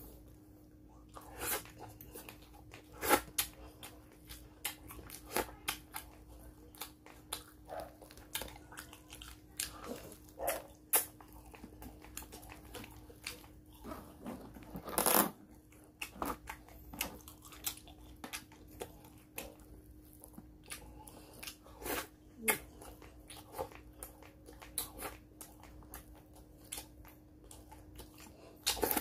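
Close-up eating sounds of a person chewing fried fish and crab with rice: wet chewing and lip smacks with many short sharp clicks, a louder burst about halfway through. A faint steady hum sits underneath.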